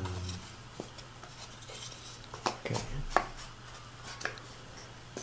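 Wooden boards and wedges of a paskha mold knocking and clicking together as they are handled and fitted into their slots: a few scattered light wooden taps, the sharpest a little past the middle.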